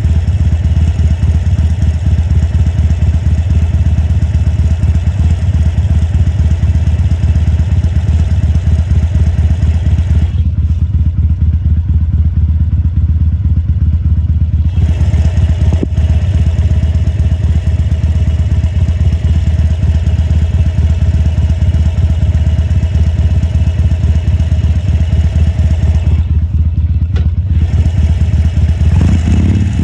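2014 Harley-Davidson Sportster 1200 Custom's air-cooled V-twin running at low revs with a steady pulsing beat. Twice the harsher upper part of the sound drops away for a few seconds, and near the end the revs climb.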